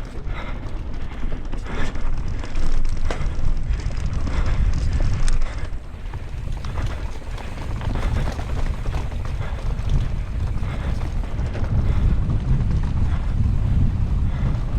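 Wind rumbling over the microphone of a mountain bike ridden fast downhill, with a steady clatter of short knocks and rattles from the bike and tyres over rough ground.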